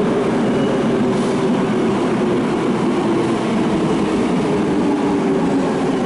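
Steady hum and rush of a Keikyu electric train standing at the platform with its doors open, its onboard equipment running, mixed with the station's echoing ambience.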